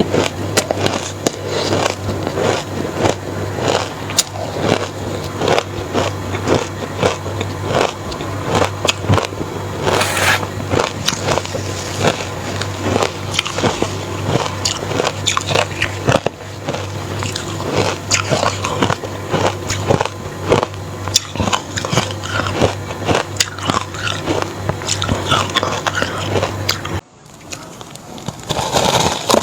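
Reshaped crushed ice dusted with matcha powder being bitten and chewed: dense, irregular crunching and crackling close to the microphone, over a steady low hum. The sound drops away for a moment near the end, then the crunching resumes.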